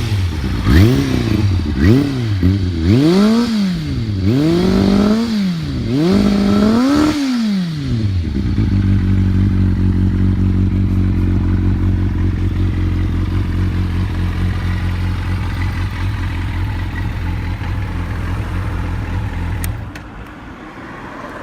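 Kawasaki ZRX400 inline-four motorcycle engine with an aftermarket silencer, blipped about six times, each rev rising and falling quickly, then settling into a steady idle. The engine note drops away near the end.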